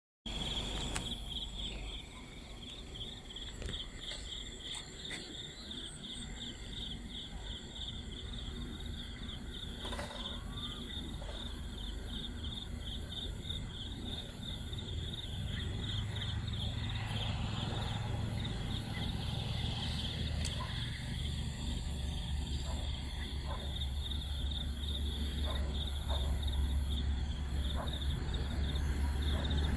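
Night insects chirping in a fast, steady pulsing trill. A low rumble comes in about halfway and grows louder toward the end.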